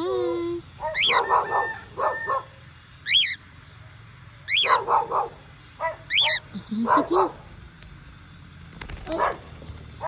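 Pet parrots calling: repeated sharp, high screeches that rise and fall quickly, mixed with short, harsher, lower squawks.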